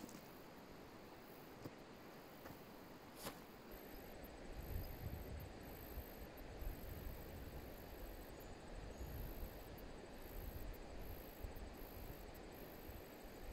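Steady hiss of a shallow river flowing over stones, with a few scattered clicks of stones underfoot in the first few seconds; from about four seconds in, wind gusts rumble on the microphone.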